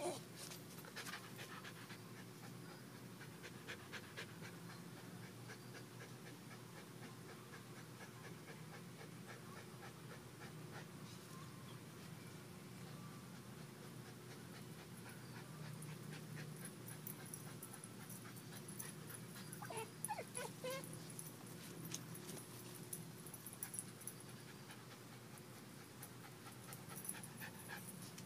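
Pit bull puppy panting quietly, with scattered light clicks and knocks.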